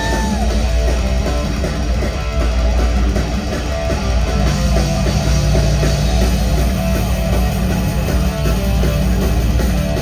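Rock band playing loudly, driven by guitar and drums, in a sung-free instrumental stretch.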